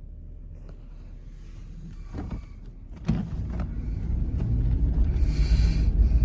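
A vehicle's engine and road rumble, growing steadily louder as it gets under way, with a sharper rise about three seconds in.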